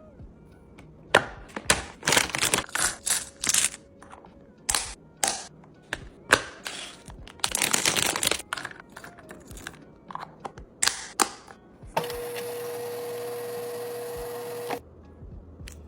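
Restocking handling sounds: plastic containers and packaging being set down, clicked and rustled, as a quick run of sharp clicks and crinkles. Near the end comes a steady hum with a hiss that lasts about three seconds and cuts off suddenly.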